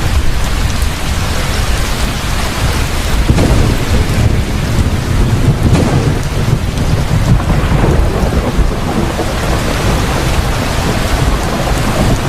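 Heavy rain pouring down with a deep, rolling rumble of thunder underneath.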